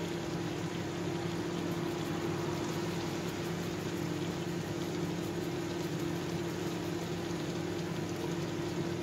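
Chicken pieces simmering in soy and fish sauce in a wok over a gas flame: a steady bubbling, sizzling hiss. A constant low hum runs under it.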